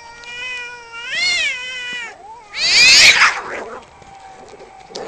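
Two tomcats caterwauling in a territorial standoff: one long, drawn-out yowl that swells and rises in pitch about a second in, then a sudden loud, harsh cry about two and a half seconds in.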